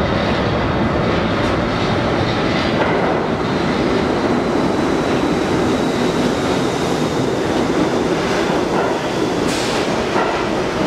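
New York City Subway R62A train pulling into an underground station. Its wheels rumble and clatter steadily over the rails, with a faint high whine partway through and a brief hiss near the end.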